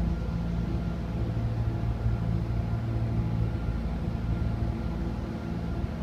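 Steady low drone of an idling engine, a level hum with a low rumble beneath it.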